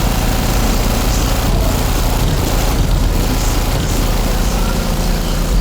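Four Pride 15-inch subwoofers in a sixth-order box playing bass at high volume: a loud, steady, deep rumble with a rough, noisy edge that fills every range.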